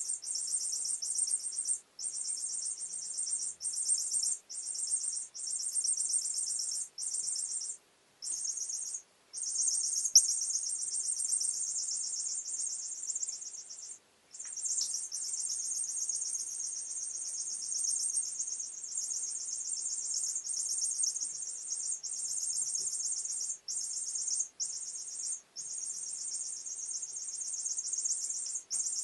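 Squeaky cat teaser wand toy giving a high-pitched, chirping squeak. It comes in runs lasting from under a second to several seconds, with brief breaks between them, and one short sharp peak about ten seconds in.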